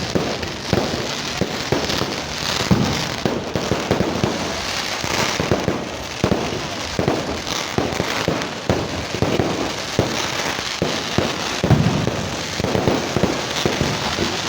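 Fireworks going off in a dense, continuous barrage: many sharp bangs and crackles overlapping irregularly, with heavier booms about three seconds in and near the end.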